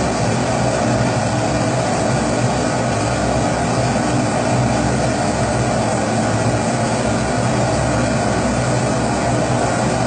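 Pressurised kerosene (Primus-type) stove burner running, a steady, even rush of flame noise with no breaks.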